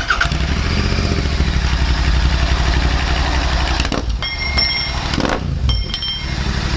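Royal Enfield Continental GT650's 650 cc parallel-twin engine starting and running through a Red Rooster aftermarket exhaust, with a BMC air filter fitted. The engine note dips briefly about five seconds in.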